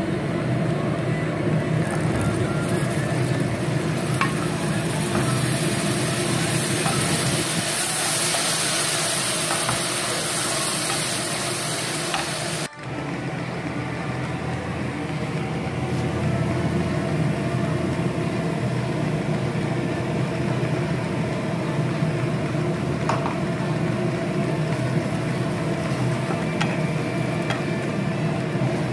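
Onions and spices sizzling in hot oil in a frying pan as they are stirred with a wooden spatula, over a steady low hum. After a brief break a little before halfway, tomato purée fries and sizzles more softly as it is stirred.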